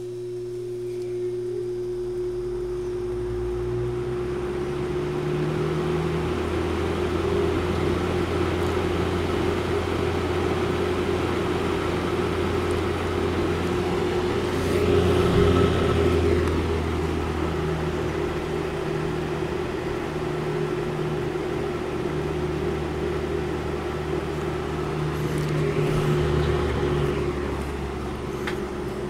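1953 Fasco box fan's electric motor humming as the blades spin up over the first few seconds, then running steadily with a rush of moving air. The sound swells louder twice, about halfway through and near the end.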